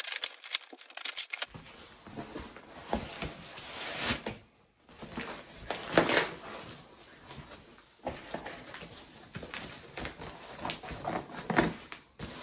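Cardboard box being opened: scissors cutting through packing tape and cardboard, flaps torn and pulled back, then foam packing pieces rustled and shuffled inside. Irregular crinkling and tearing noises, the loudest about six seconds in.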